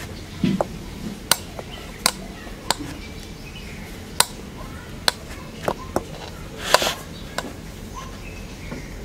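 Stiff maida-and-besan dough being kneaded and pressed by hand in a steel bowl: irregular sharp knocks and taps of the dough and hands against the metal bowl, about one a second, with a longer scraping sound a little before the end.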